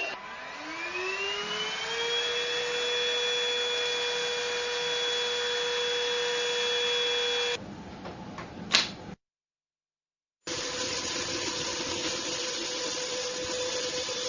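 TINTON LIFE VC812 cordless handheld vacuum cleaner's motor spinning up with a rising whine, then running at a steady whine. About seven and a half seconds in it stops, a sharp click follows, and after a second or so of silence the motor is heard running again.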